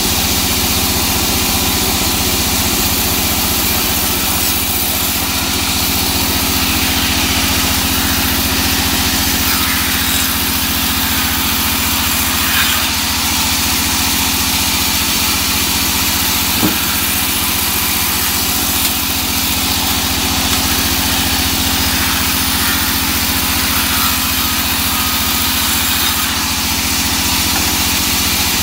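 Sawmill band saw running steadily while it rips a small teak log lengthwise. The sound stays even throughout, with a couple of faint knocks.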